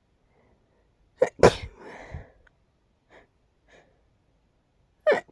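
A person sneezing: a loud sneeze just over a second in, in two quick parts, with a breathy trailing sound after it. A couple of faint short breaths follow, and another sneeze starts right at the end.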